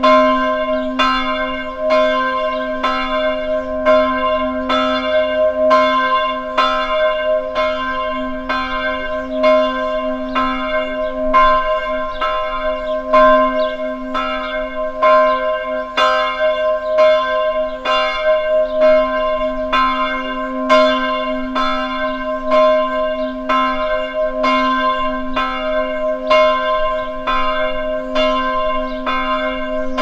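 A church bell struck over and over at a steady pace, about two strikes a second. Its hum rings on without a break between strikes.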